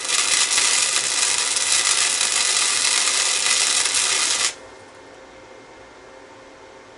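Electric arc welding on the cracked cast-iron shift collar of a Foote 3-speed transmission: a steady crackling hiss for about four and a half seconds that cuts off suddenly, leaving a faint steady hum.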